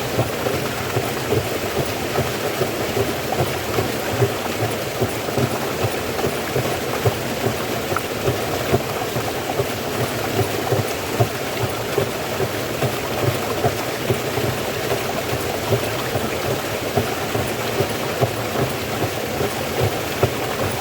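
Water flowing and splashing steadily in a small stream, a dense, continuous rush with many small splashes and no lulls.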